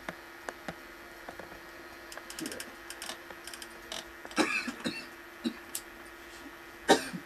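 Scattered clicks of a computer keyboard and mouse over a low steady hum, with two brief louder sounds about halfway through and just before the end, the second the loudest.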